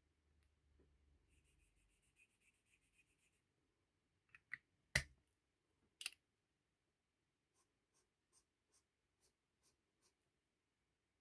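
Faint scratching of a marker on paper, followed by a few sharp clicks, the loudest about five seconds in, and a row of soft, evenly spaced ticks near the end.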